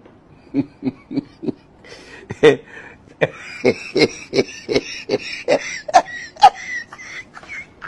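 A young boy crying in short, rapid sobbing gasps, about three a second.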